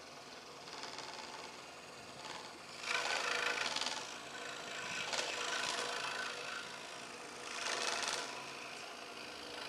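Two benchtop scroll saws running, their reciprocating blades cutting thin wood. The cutting noise swells louder three times, about three, five and eight seconds in.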